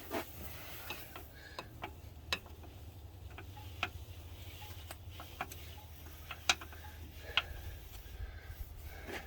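Scattered, irregular sharp clicks and taps, about a dozen, as a pry bar and screwdriver work a stuck heater hose loose from its fitting on the engine.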